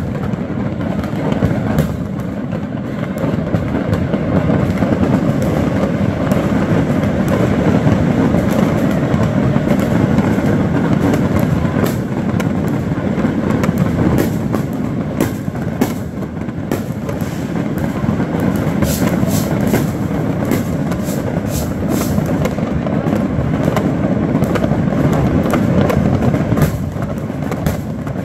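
Many fireworks going off across a neighbourhood at once: a continuous dense rumble and crackle with sharp pops scattered through it, thicker after about halfway.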